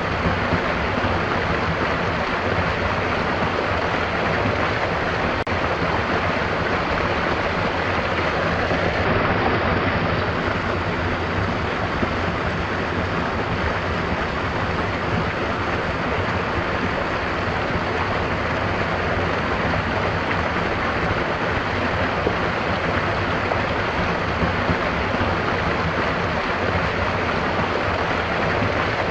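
Stream water rushing steadily, an even, unbroken flow.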